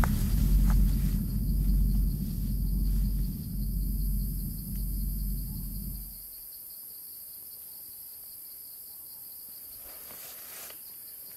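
A deep, wavering rumble that weakens slowly and then cuts off suddenly about six seconds in. Under it, and alone after it, is a steady high-pitched drone of insects.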